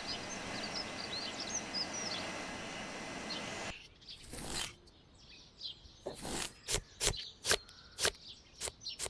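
Steady outdoor background noise with birds chirping that cuts off abruptly almost four seconds in. A quieter stretch follows with a string of sharp, irregular knocks and clicks, about eight of them.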